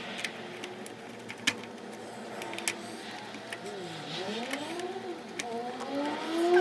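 Electric screwdriver driving in the screws that hold a shift boot to its console trim, its motor whine rising and falling in pitch as it speeds up and slows. Light clicks of handling come first.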